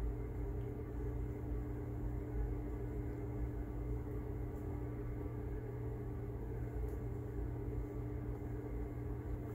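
Steady low hum and rumble, with a faint constant tone above it.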